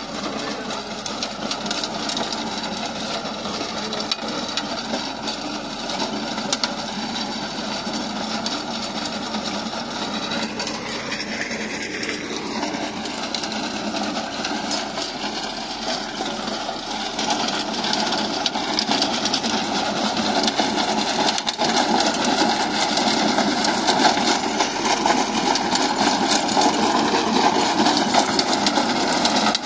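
Tractor's diesel engine running under load, driving a sensor rotary tiller whose blades churn dry soil and grass in a steady mechanical din. A falling whine comes about halfway through, and the noise grows louder over the second half.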